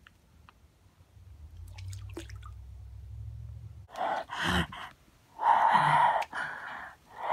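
Heavy breathing close to the microphone. Several long, loud breaths come at about one-second intervals, starting about four seconds in. Before them there is a faint low rumble and a few soft snaps.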